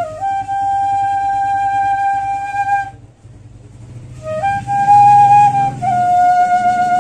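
A bansuri flute playing a slow melody: one long held note for nearly three seconds, a pause of about a second and a half, then more long held notes that step down in pitch.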